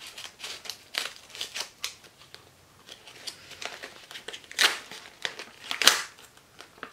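Scissors cutting open a parcel, a run of short snips and scrapes through tape and cardboard with packaging rustling. Two louder strokes come about four and a half and six seconds in.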